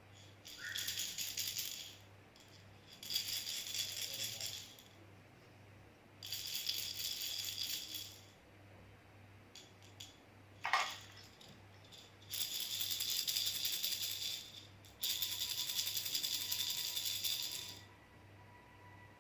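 Baby rattle shaken in five separate bouts of a second and a half to three seconds each, a dense high rattle of loose pieces with short pauses between; a single sharp knock falls about halfway through.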